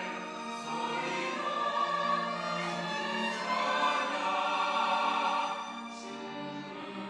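Church choir singing an anthem in held chords, growing louder in the middle and easing off about five and a half seconds in.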